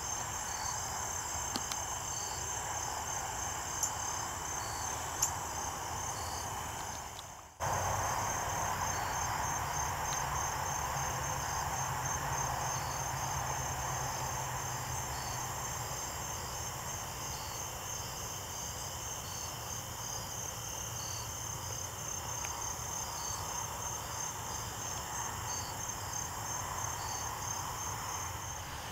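Crickets chirping in a steady high trill, with a slower, evenly repeated chirp beneath it. The sound dips and cuts off for a moment about seven and a half seconds in, then resumes.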